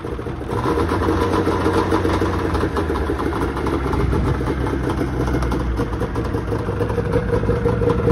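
2000 Arctic Cat ZRT 600 snowmobile's three-cylinder two-stroke engine idling steadily after a cold start, a little louder from about half a second in.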